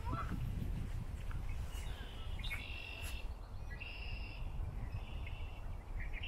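Park ambience: a steady low rumble with several short, high-pitched bird calls starting about two seconds in.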